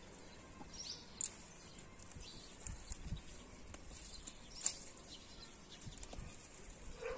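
Faint rustling of leaves and soil as plants are handled close to the ground, with a few scattered sharp clicks.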